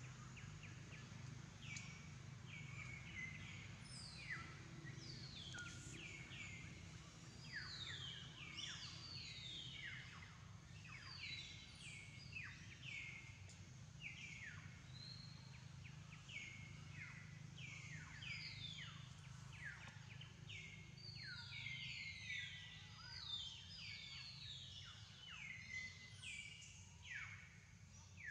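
Faint outdoor ambience of birds chirping: many short, overlapping calls that fall in pitch, repeating throughout, over a low steady hum.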